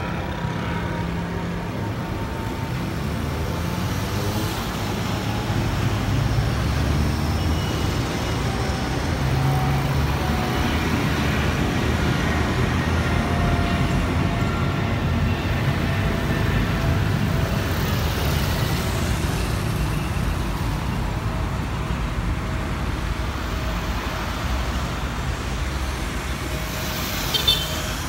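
Boeing 777-200ER's twin GE90 turbofans passing overhead in a departure climb: steady jet noise with faint whining tones sliding slowly downward, loudest from about six to twenty seconds in. A brief sharp sound just before the end.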